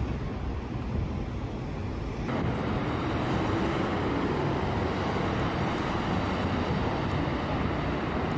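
Steady city road traffic, a continuous rumble of cars and buses on a multi-lane road; it gets fuller and a little louder a little over two seconds in.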